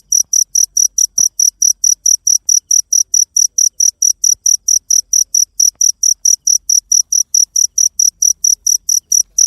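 Cricket chirping in a steady, high-pitched pulse, about four to five chirps a second without a break.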